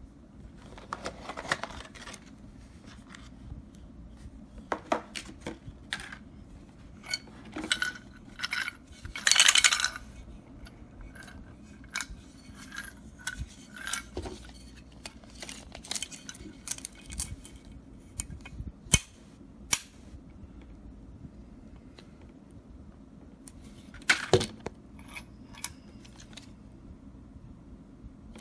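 Handling of a Master Lock 5401D combination lock box: scattered metal clicks, clinks and scrapes, with a louder rattling burst about nine seconds in and sharp clicks near nineteen and twenty-four seconds.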